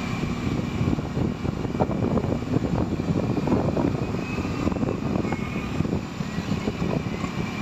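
Motorcycle engine running steadily while riding along a road, mixed with rough wind buffeting on the microphone.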